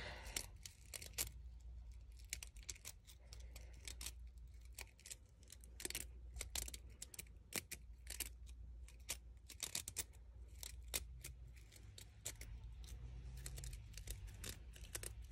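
Faint, irregular crisp clicks and rustles of fringed paper strips being pulled apart by fingers as a rolled paper flower center is fluffed out.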